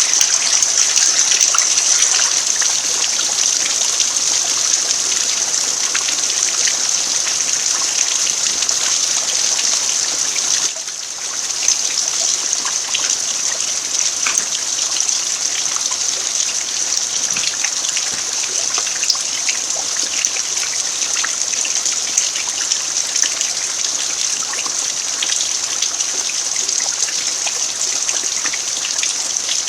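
Steady rain falling on a dirt yard: a dense, even hiss scattered with many small drop ticks, dipping briefly about eleven seconds in.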